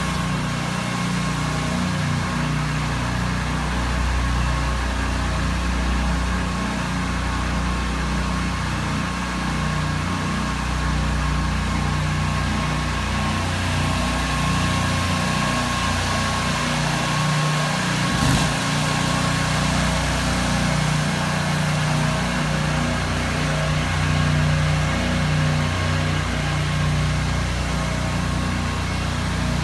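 Small engine of a pressure-washing rig running steadily at constant speed, with a single sharp click about eighteen seconds in.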